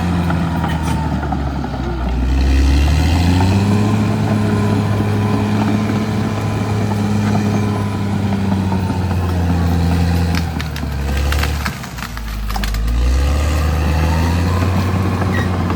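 Caterpillar D6R XL bulldozer's diesel engine working under load. It revs up a few seconds in and drops back about three-quarters of the way through, with a few sharp clanks, then revs up again.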